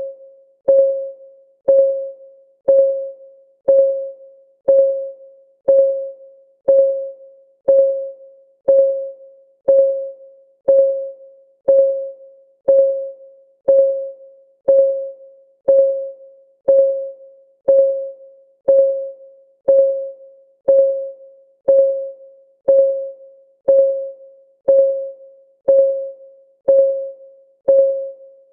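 Countdown timer's clock-tick sound effect: a short, pitched tick about once a second, each ringing briefly and fading, in a steady even rhythm.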